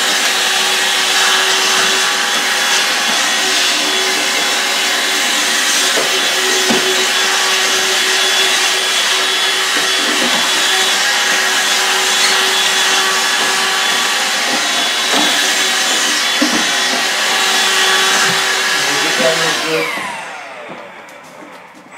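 Handheld vacuum cleaner running steadily as it cleans out a home coffee roaster. It is switched off near the end, and its motor winds down with a falling whine.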